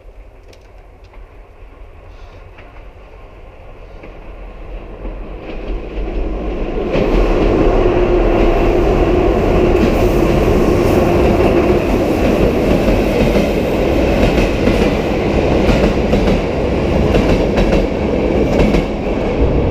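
Freight train coming through a railway tunnel, growing louder over the first several seconds. It then passes close by, loud and steady, with the clatter of its wheels on the rails.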